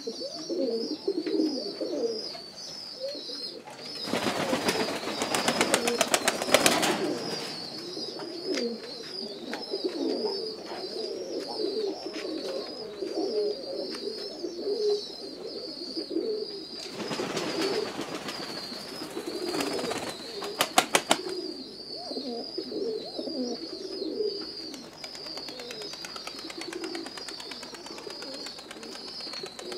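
A flock of domestic pigeons cooing continuously while feeding, with two loud spells of rapid wing-flapping, about four seconds in and again around seventeen seconds, as birds take off.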